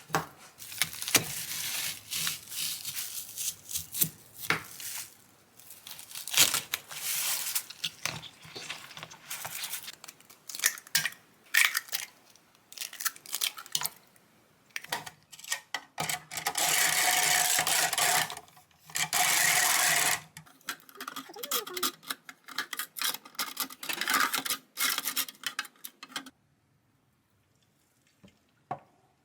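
Food being prepared in a kitchen: irregular rustling, tearing and clattering of packaging and utensils, with two steady rushing stretches of a couple of seconds a little past the middle.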